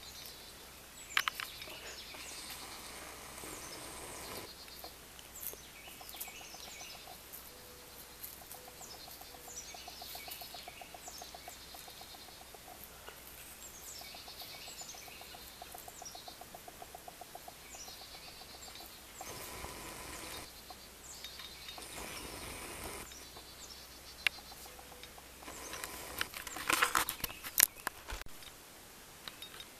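Songbirds singing in woodland: repeated short chirps that slide downward in pitch, with a faster, lower pulsing trill through the middle stretch. Near the end comes a brief burst of rustling and knocks.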